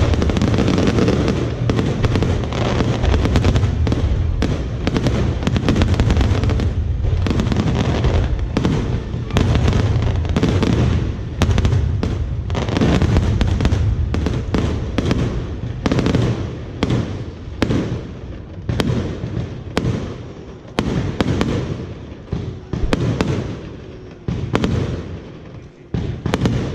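Fireworks going off in a rapid, continuous barrage of bangs and crackles over a low rumble. In the last several seconds the barrage thins, the bangs coming further apart and fainter.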